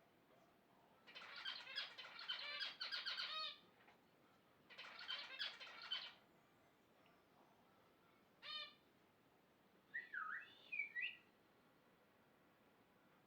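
Caged birds calling: three bouts of harsh, rapidly pulsed squawks, then a few short whistled calls that swoop up and down about ten seconds in.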